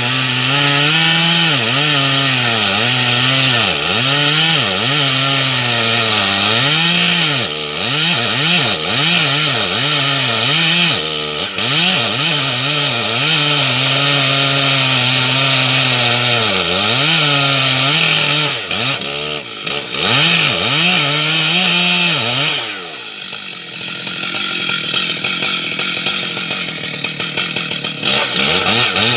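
Stihl MS 880 large two-stroke chainsaw running at high revs, its pitch repeatedly sagging and recovering as the chain is loaded in the cut of an ash trunk. About three quarters of the way through it drops back quieter for a few seconds, then revs up again near the end.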